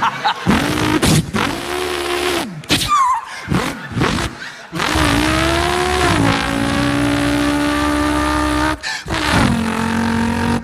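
A man's voice imitating a racing car engine: revving notes that rise and fall, a brief high tyre-squeal sound about three seconds in, then a long held engine note from about five seconds to nine, with short breaks between.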